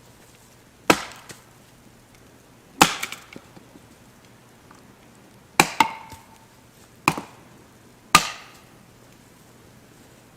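Wood being chopped: five sharp strikes a second or two apart, each with a short ringing tail, the third followed at once by a second lighter hit.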